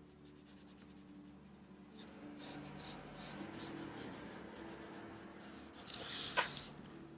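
Alcohol marker in cold grey being stroked across smooth paper: soft scratchy strokes that begin about two seconds in, with a louder scratch about six seconds in.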